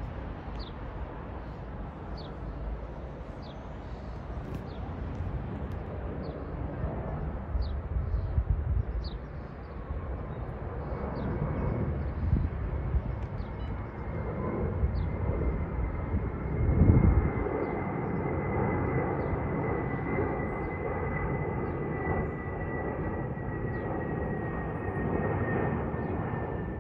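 Twin-engine widebody jet airliner passing overhead: the engine noise builds, with a thin whine that slowly falls in pitch through the second half. A bird chirps repeatedly in the background, and a short low rumble stands out about two-thirds of the way in.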